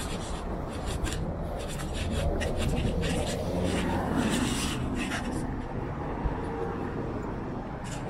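Street ambience heard while walking: scuffing footsteps and a low rumble of traffic, swelling in the middle as something passes.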